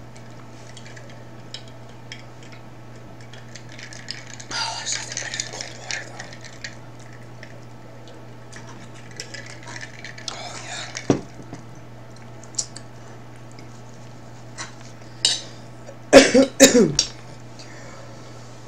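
Metal fork clinking and scraping on a ceramic dinner plate, with scattered light clicks and a louder burst of clatter and scraping about two seconds before the end.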